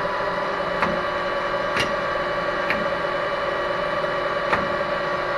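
Metal lathe running in forward with the power feed engaged on the carriage, not cutting: a steady gear whine with a few light clicks spread through it.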